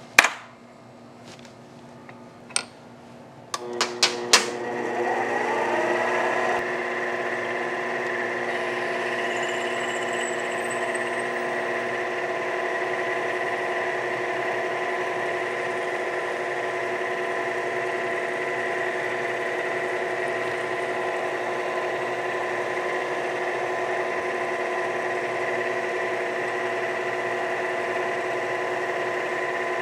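A few clicks and knocks, then a variable-speed mini lathe starts up: its motor and gear whine rise in pitch over about three seconds and settle into a steady whine of several tones. Meanwhile a number 25 drill bores a clearance hole through an aluminum part.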